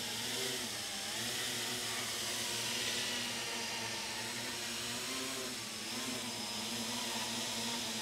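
7-inch FPV quadcopter hovering on 3D-printed OCTOblade propeller hubs, each carrying six DalProp Fold 2 folding blades set in two groups of three. A steady hum of motors and propellers with a hiss of moving air, the motor pitches wavering slightly.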